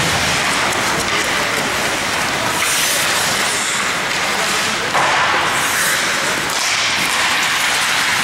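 Ice hockey play heard from the stands: skates scraping and hissing on the ice, swelling briefly twice, over a murmur of spectators' voices.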